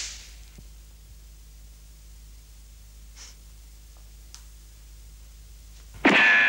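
Quiet room tone with a few faint clicks, then about six seconds in a sudden loud metallic clang that keeps ringing, as a hand slaps a face: a comic slap sound effect.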